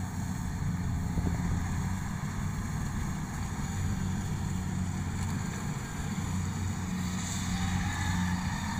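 Kubota DC70 combine harvester's diesel engine running steadily as it cuts rice, a constant low drone.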